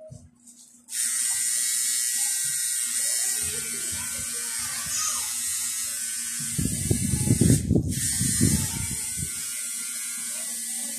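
Electric tattoo machine buzzing steadily as the needle works ink into the skin, starting about a second in with a brief break in the second half. A louder muffled low sound comes in for a few seconds in the second half.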